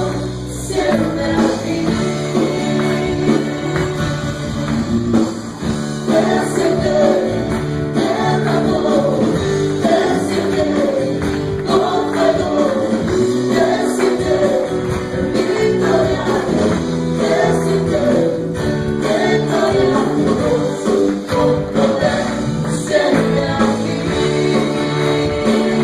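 Live church praise music: singing over a band that plays a steady beat, with a tambourine shaking along.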